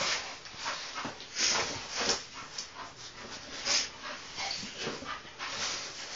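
English Bull Terrier making a string of short, irregular breathy noises as it noses around among hanging coats and shoes.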